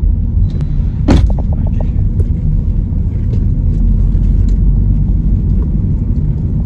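Steady low rumble of a car moving, heard inside the cabin: engine and tyre noise. A brief sharp knock about a second in.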